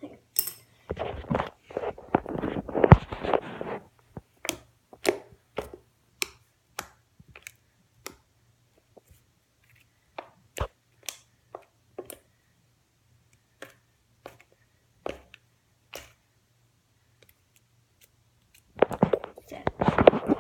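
Glue-and-shaving-cream slime being squished and kneaded by hand. It starts with a few seconds of squelching, then gives a long run of separate sharp little pops and clicks, and squelches again near the end.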